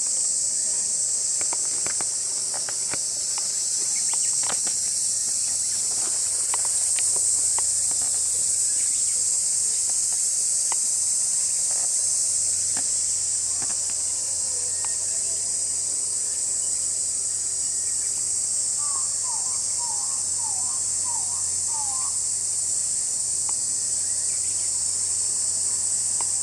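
Steady, high-pitched chorus of insects droning without a break. Scattered light clicks in the first few seconds, and a short run of quick falling notes about three-quarters of the way through.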